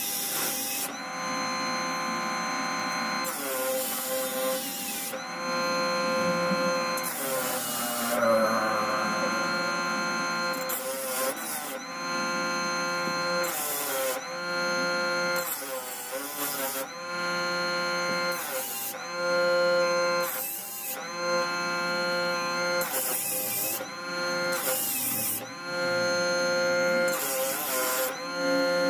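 Bench disc sander running with a steady whine while a wooden board is pressed against the spinning disc. A rasping sanding noise comes in repeated passes about every three seconds.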